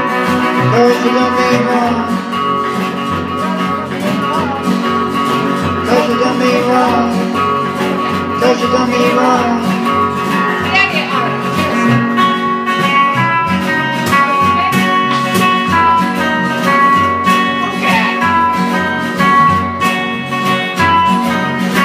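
Rockabilly instrumental break: acoustic guitar strumming and upright bass keeping the beat while an electric guitar picks a single-note lead line.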